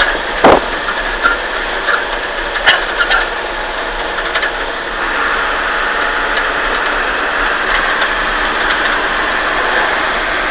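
Steady vehicle running noise, with a loud knock about half a second in and a few sharp clicks over the next couple of seconds.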